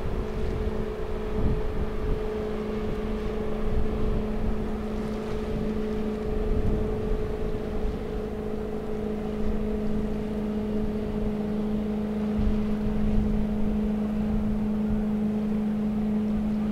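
Steady engine hum from a vessel on the water, holding an unchanging low drone, with wind rumbling on the microphone.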